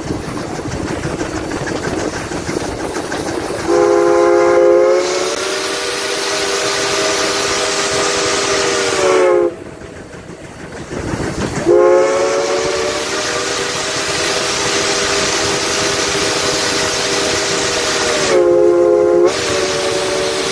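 Steam locomotive's chime whistle blowing two long blasts, a chord of several notes sounding together; the second blast swells louder briefly near the end. Under it runs the steady rolling noise of the moving train.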